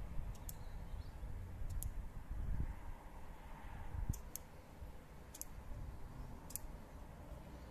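Light, sharp clicks from turning the Sofirn SD05 diving flashlight's rotary mode-selector ring between positions. There are about seven clicks, irregularly spaced, some in quick pairs.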